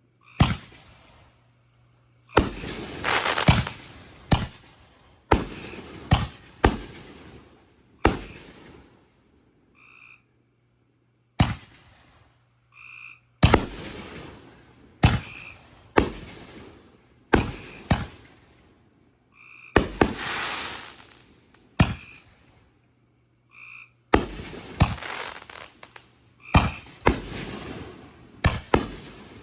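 Backyard consumer fireworks going off in quick succession: sharp bangs, each trailing off in crackling and hissing, with longer crackling bursts about three seconds in and again near twenty seconds. In the quieter gaps, frogs call with short croaks.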